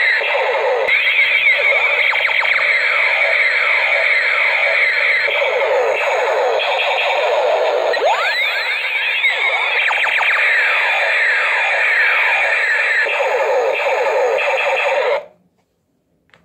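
Two battery-operated toy space ray guns sounding their electronic laser effects together: dense, overlapping, rapidly falling 'pew' sweeps. The sound cuts off suddenly about fifteen seconds in.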